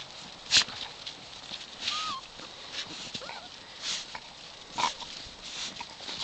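Golden retriever puppies and an adult dog romping in snow: irregular scuffling and crunching of paws and bodies in the snow, one sharper and louder about half a second in, with two brief high squeaks from a puppy around the middle.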